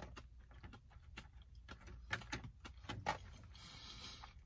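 Faint clicks and small knocks from eating and handling takeout food, with two louder knocks about two and three seconds in and a brief rustle near the end.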